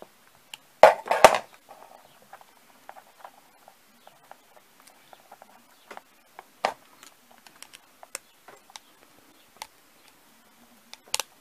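Small clicks and scrapes of wire ends and a small screwdriver working the screws of a plastic screw terminal block on a circuit board. About a second in there is a louder short clatter of knocks.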